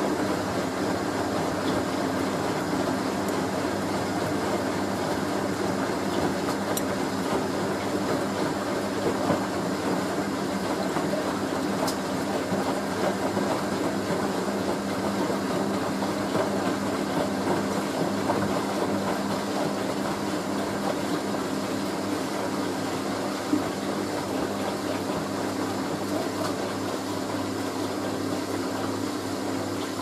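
Hoover A3060 Electronic 1100 washing machine in its final spin on the slow-spin setting: the drum and motor hum steadily at an even speed.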